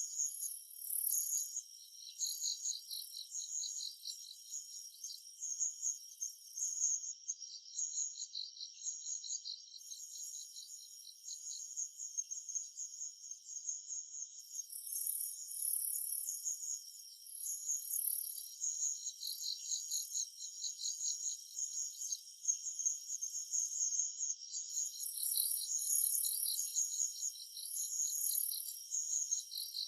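Summer-forest insects chirping: several overlapping fast pulsing trills, with a higher steady buzzing layer that drops out three times for a second or few.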